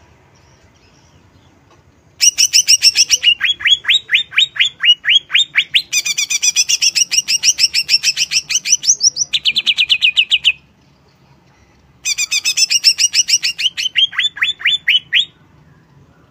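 Cucak ijo (greater green leafbird) singing loud, rapid trains of sharp, downward-sweeping notes at about six a second. The song comes in two long bursts with a short pause between them. This is the fast repeated 'shooting' phrase that keepers prize in this bird.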